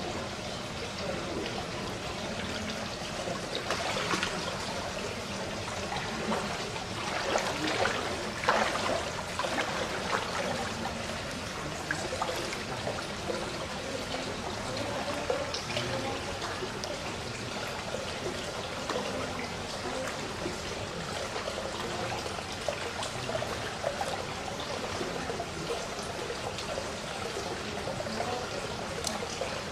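Water trickling and pouring steadily, with louder surges about four seconds and eight seconds in.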